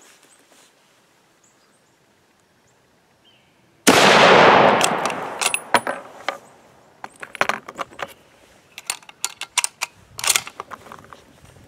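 A single .30-06 shot from a Springfield 1903A3 bolt-action rifle about four seconds in, its report dying away over about two seconds. Then a run of short metallic clicks and clacks as the bolt is worked and a cartridge is loaded by hand, the magazine cut-off engaged for single loading.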